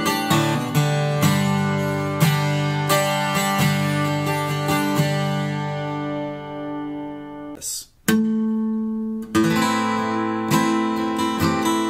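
Background music of acoustic guitar, plucked and strummed with a steady rhythm. It breaks off briefly about eight seconds in, then starts again.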